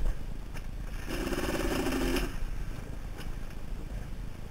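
ATV engine pulling up a steep dirt climb, its note rising to a steady higher pitch for about a second and then dropping away, under low wind rumble on a helmet-mounted microphone. A couple of light knocks near the end.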